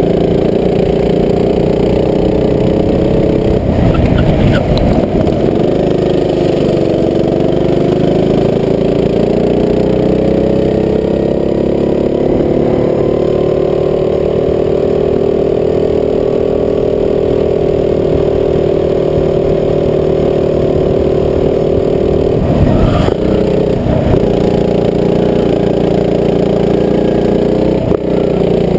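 Rental go-kart engine heard from on board, running hard at a fairly steady pitch that dips a few times as the kart slows for corners and climbs back as it accelerates. There are a couple of brief rough bursts of noise along the way.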